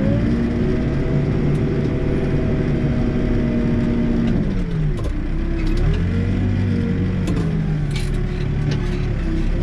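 Backhoe loader's diesel engine working under load. It revs up at the start, drops back about four and a half seconds in, then revs up again a second later and wavers as the operator works the controls.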